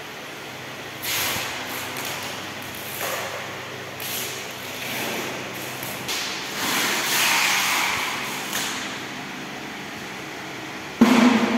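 Hall noise: repeated short hissing bursts, then a sudden loud clunk followed by a low hum about eleven seconds in.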